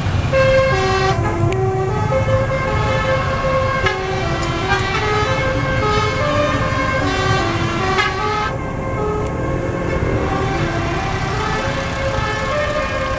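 A tour bus's multi-tone telolet horn playing a quick melody of short notes that step up and down, over a low engine rumble.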